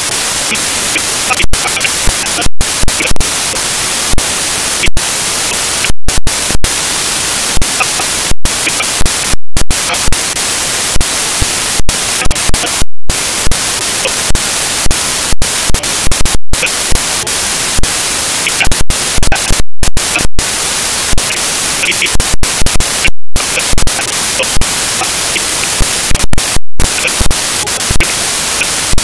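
Loud, steady hiss of static covering the whole range, cut by many brief dropouts to dead silence and short louder spikes. This is the sound of a corrupted recording's audio track.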